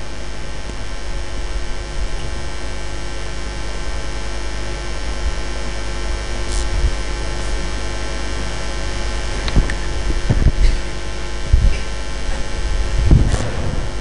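Steady electrical mains hum on a sound system's microphone line, with a few low knocks and bumps in the last few seconds.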